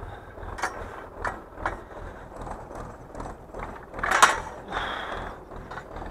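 An old towed hay implement clattering and ratcheting as it is pulled over cut hay: irregular metal clicks and knocks, with one loud clank about four seconds in.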